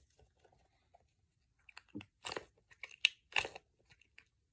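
A squishy Nee-Doh stress ball with a dough-like filling being squeezed and kneaded in the hands, giving a few short, irregular crunchy squishing sounds in the second half.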